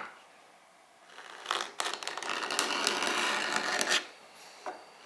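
A scratch stock, a card-scraper blade filed to an ovolo profile, scraping along a wooden edge in a run of strokes lasting about two and a half seconds, starting a little over a second in. A short click comes at the very start.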